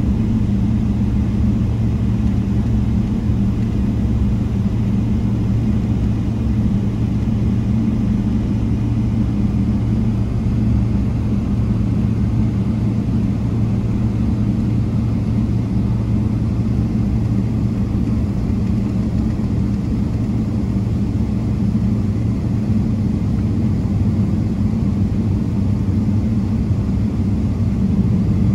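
Steady cabin rumble inside a Boeing 777-300ER on the ground, its GE90-115B engines at idle, with an unchanging low hum throughout.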